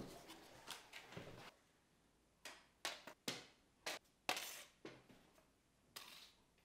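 Soft paper rustling fades over the first second and a half as the folded paper airplane is swept off the table. Then come a string of short sharp taps and clinks, the loudest about four seconds in, and a last tap about six seconds in as the paper plane lands back on the wooden tabletop.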